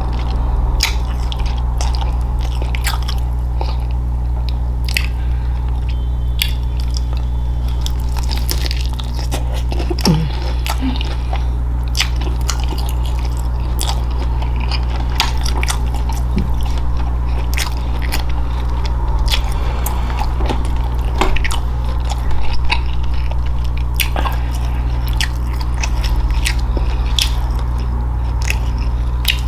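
Close-miked chewing of Hot Cheetos-crusted lobster tail: crunchy bites and moist chewing, with many small crackles throughout. A steady low hum runs underneath.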